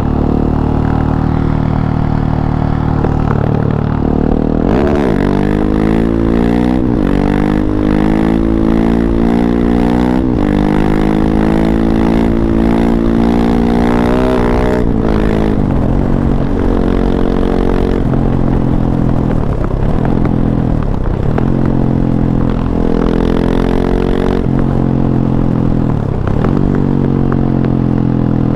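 KTM 690 SMC-R's single-cylinder engine through an Arrow Race-Tech exhaust, loud, its revs climbing in several rising pulls from about five seconds in to about fifteen. After that it runs at steadier revs, dipping briefly a few times as the throttle closes.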